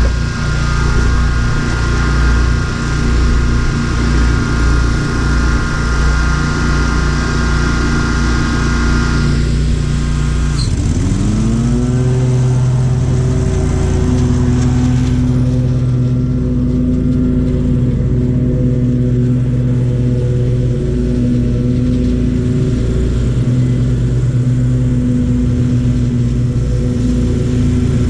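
Stand-on lawn mower's engine running steadily under load. About ten and a half seconds in, the engine note dips sharply and then climbs back up to a steady drone.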